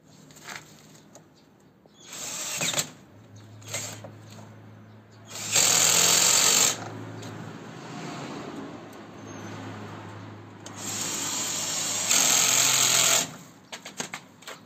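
Cordless drill-driver turning the bolts on an electric scooter's rear wheel in several bursts, the loudest about six seconds in and again about twelve seconds in. There are a few light clicks near the end.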